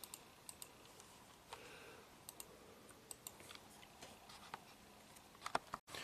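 Faint, scattered clicks and taps from a laptop being worked while navigating a diagram, over a quiet room hush.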